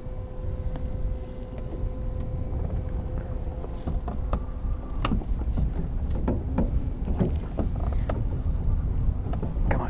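Steady low rumble from a small fishing boat, with a faint steady hum and scattered clicks and knocks.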